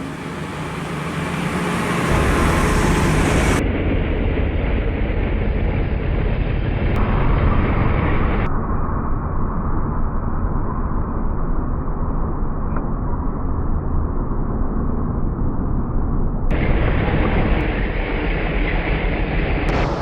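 Steady rumbling street noise of vehicle traffic, its tone changing abruptly a few times.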